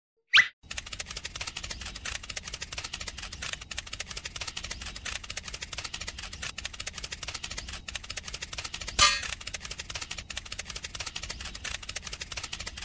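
A fast, dense clicking rattle that carries on steadily, with a brief sliding whistle-like sound just under half a second in and another about nine seconds in.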